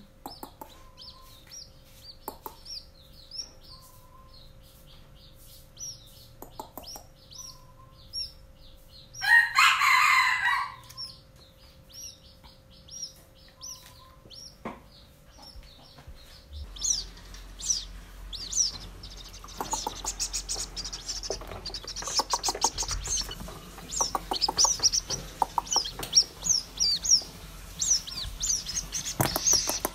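White-breasted waterhen (ruak-ruak) chicks peeping in rapid, high, short chirps, louder and busier in the second half. A brief louder noise comes about nine seconds in.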